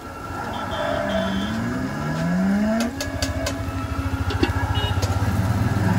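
A motor vehicle's engine revving up, its pitch rising over a couple of seconds, then running steadily with a rapid low pulsing. A few sharp clicks come about three seconds in.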